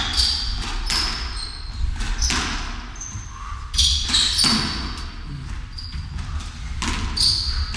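Squash ball being struck by racquets and hitting the court walls and floor, each sharp crack ringing in the hall, with short high squeaks from court shoes on the wooden floor.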